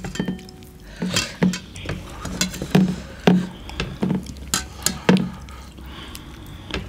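Close-up wet eating sounds of people eating with their hands: lip smacks, sucking on a mutton leg bone and licking fingers, in sharp smacks about every half second. Fingers scrape rice off a steel plate.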